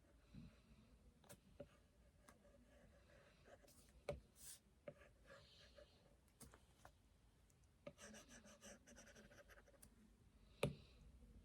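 Faint scratching of a drawing tool across a surface in short strokes, with scattered light taps. A quick run of strokes comes about eight seconds in, and a sharper tap comes near the end.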